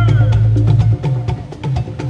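Music with a quick percussive beat over a held bass note; the bass drops out about halfway through.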